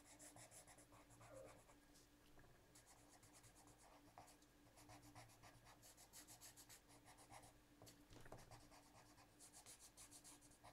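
Coloured pencil scratching on paper in quick shading strokes. The strokes are faint and come in short runs with brief pauses between them.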